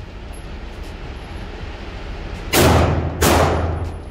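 Two gunshots about two-thirds of a second apart, a little past halfway through, each ringing out in the echo of an indoor shooting range.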